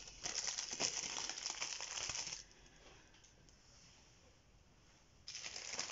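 Plastic packet of sandwich cheese slices crinkling as slices are pulled out of it. It crinkles for about two seconds, goes quiet, then starts again near the end.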